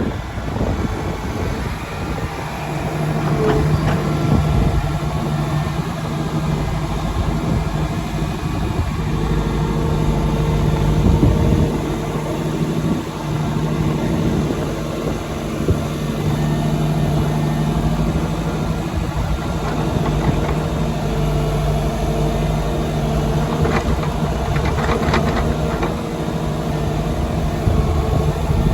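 Engine of a working machine running steadily at an even speed, with a few sharp knocks about four-fifths of the way through.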